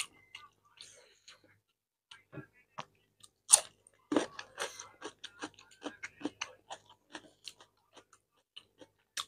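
Close-up mouth sounds of eating by hand: soft chewing of rice and curry, then a crisp bite into fresh cucumber about three and a half seconds in, followed by dense crunchy chewing.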